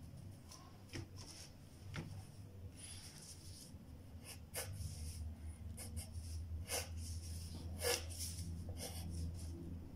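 Graphite pencil drawing on paper: scattered short scratchy strokes, busier in the second half, over a low steady hum.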